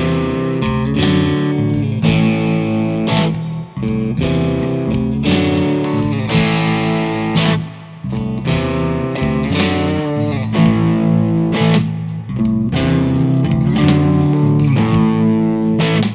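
Electric guitar with single-coil pickups playing a blues shuffle through an amp simulator set at the edge of breakup, slightly overdriven. The chords are struck in a steady rhythm, with brief gaps between phrases.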